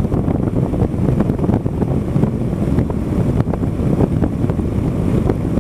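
Steady wind rush buffeting the microphone of a Honda Africa Twin CRF1000L cruising at highway speed, around 107 km/h. Underneath it run the bike's 998 cc parallel-twin engine and the tyres on a still-damp road.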